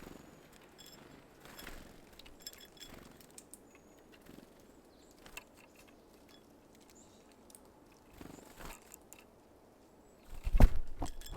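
Small birds at a feeder: faint scattered clicks and a few brief high chirps, then near the end a sudden run of loud knocks on the feeder.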